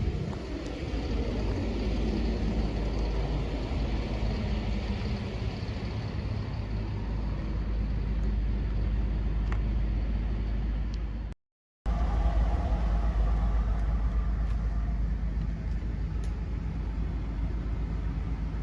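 Ford 6.8L V10 gasoline engine of a Class A motorhome running with a steady low rumble, its pitch falling over the first few seconds. The sound drops out briefly about eleven seconds in, then carries on.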